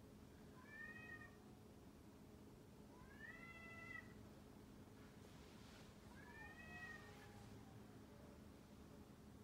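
Domestic cat meowing three times, a few seconds apart, each faint call about a second long and rising then falling in pitch.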